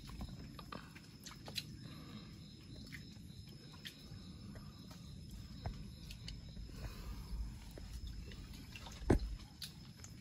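Faint steady noise of river water, with scattered small clicks and one louder thump about nine seconds in.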